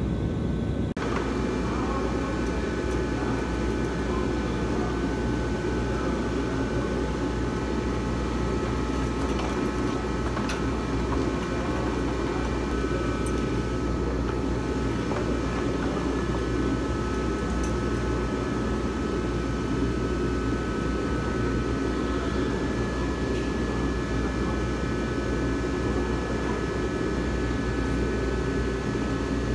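Steady mechanical drone with a low hum and a few faint whining tones above it, unchanging throughout, with an occasional faint click.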